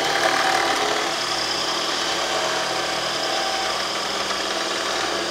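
Electric food processor running steadily, its blade spinning through banana pieces and chocolate peanut butter.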